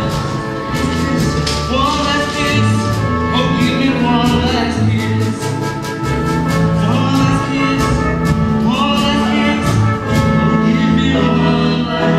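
Live pit band music from a stage musical, with held notes over a steady beat of drum or cymbal hits.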